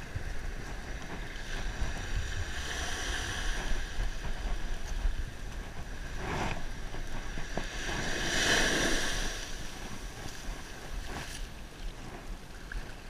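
Light surf washing up the beach, swelling twice: about three seconds in, and more loudly about eight seconds in. Low wind rumble on the microphone runs underneath.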